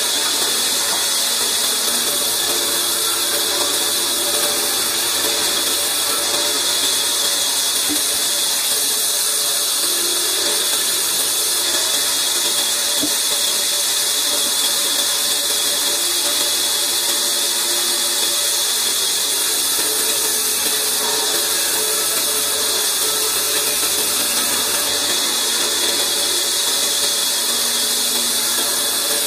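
Large sawmill band saw running steadily without cutting, a constant machine whine and hiss, with a couple of faint knocks.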